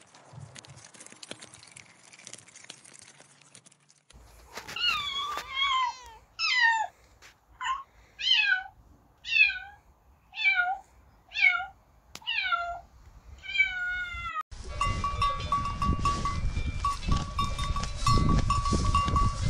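Domestic cats meowing over and over, starting about four seconds in: about ten meows roughly a second apart, each sliding down in pitch. About two-thirds of the way through the meowing stops suddenly and a louder steady rushing noise with a thin high ringing tone takes over.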